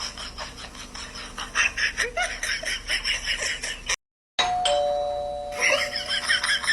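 Electronic doorbell chime holding two steady tones, higher and lower. It breaks off at a short silent cut about four seconds in, then sounds again, the higher tone first and the lower just after. A fast run of bright rhythmic clicks runs over it and is the loudest part.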